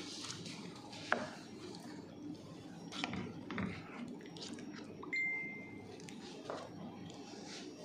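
Metal spoon stirring chicken curry in a stainless steel pot, with scattered scrapes and clinks of the spoon against the pot. A short steady high tone sounds about five seconds in.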